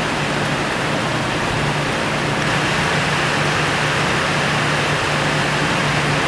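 Steady, loud rushing noise with a low hum underneath.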